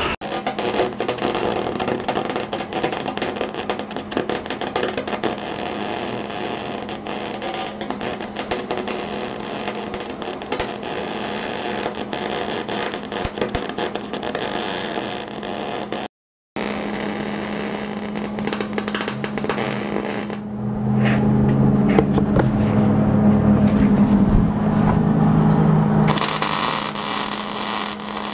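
Arc welding on a steel frame: a steady crackling sizzle over a constant low hum. About three-quarters of the way through, the crackle drops away for several seconds, leaving a deeper humming, then the welding starts again near the end.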